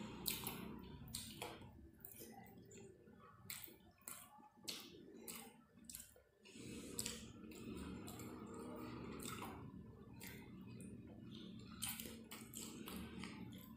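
Eating rice and chicken curry by hand: wet squishing of fingers mixing rice into the gravy, and chewing, with many short wet clicks throughout.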